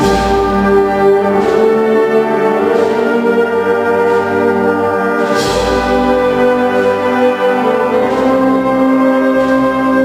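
Concert wind band playing a Spanish processional march: brass and woodwinds hold sustained chords, with bass drum and cymbal strokes at the start and again about five and a half seconds in.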